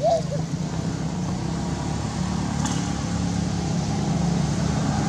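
Steady low engine drone throughout, with one short, high, gliding chirp right at the start.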